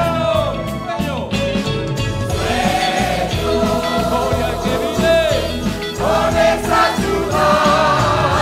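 Church choir singing a hymn with many voices, accompanied by strummed acoustic guitars and mandolins over a steady beat.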